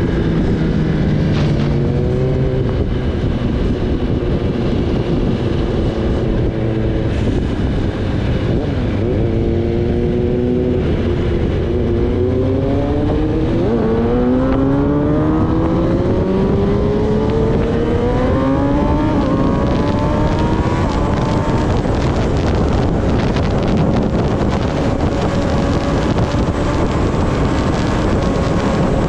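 Kawasaki Ninja ZX-10R's inline-four engine under way, with wind rush on the microphone. The revs fall at first, then climb several times, the pitch rising and dropping back with each upshift, before holding a steady high note for the last third.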